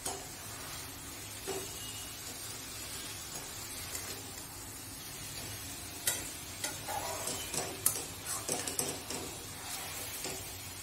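Flat spatula stirring and scraping drumstick and potato pieces in a thick mustard sauce in a steel kadai, with clacks against the pan over a steady sizzle. The scrapes come thickest about six seconds in.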